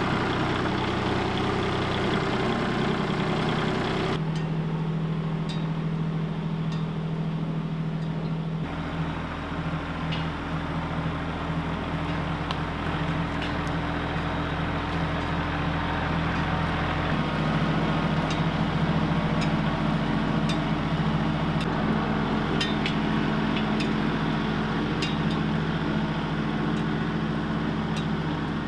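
Compact tractor engine running steadily while it drags a rear box blade over dirt, with scattered light clicks. The engine's tone shifts a few times, about 4 and 9 seconds in and again around 17 seconds.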